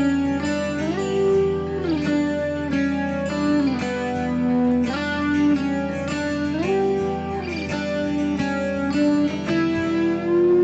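Background music: a plucked guitar melody with notes sliding between pitches over a steady accompaniment.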